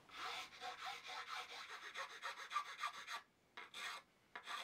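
Hand file scraping across the carbon-fibre reinforcement splines on a guitar headstock in quick, short strokes, trimming them flush. The filing pauses briefly a little after three seconds and starts again near the end.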